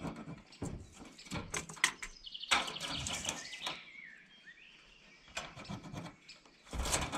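Scattered light clicks and knocks of hands and tools on steel roof sheeting, with birds chirping through the middle.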